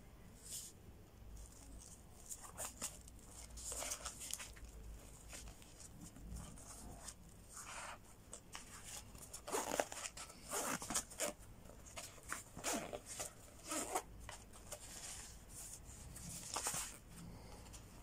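Nylon pouch being handled: fabric rustling and zippers being worked, in scattered short scrapes. The louder rustles cluster in the middle, about ten to fourteen seconds in.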